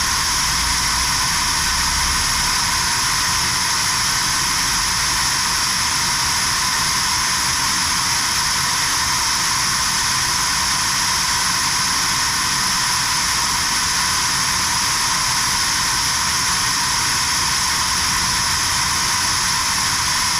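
Steady, unchanging rush of air from a fan or blower, like the cooling blower of a shrink-fit machine, with a few faint steady tones in it.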